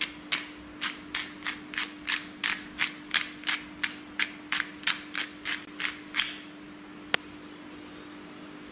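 Hand-twisted pepper grinder grinding peppercorns, a crunching click about four times a second, stopping about six seconds in. About a second later comes a single sharp knock.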